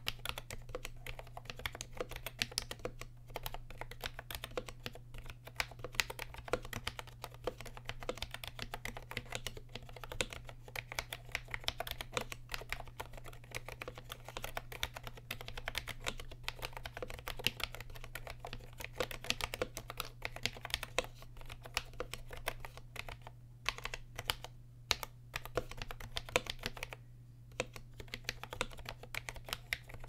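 Fast, continuous typing on a vintage NMB RT8255C+ keyboard with Hi-Tek 725 black "space invader" switches made linear by removing their click-arms: a rapid, irregular patter of key strikes, pausing briefly a few times in the last third.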